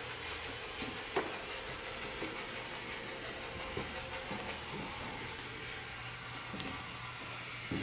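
Steady hiss of background room noise with a faint low hum that fades in and out, and a few light clicks.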